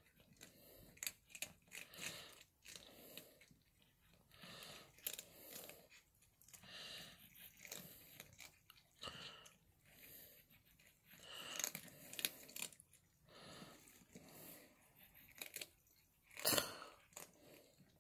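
Cats chewing and crunching food in a rapid, irregular series of small crunches.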